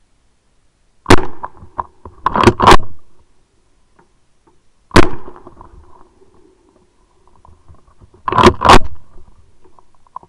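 Shotgun firing at a running wild boar: about six loud shots in three groups, one then a quick pair, a single shot, then another quick pair. Each shot trails off with a brief echo.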